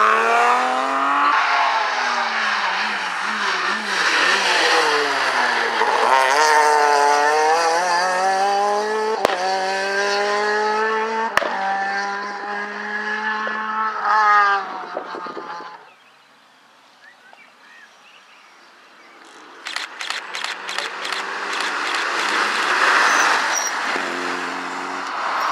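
Rally cars on a tarmac stage, the first a BMW E30 3 Series, engines revved hard, the pitch dropping and climbing again and again through gear changes. The engine sound falls away about sixteen seconds in. A few seconds later a second car, an Opel Kadett coupé, comes up loud with a run of sharp crackles.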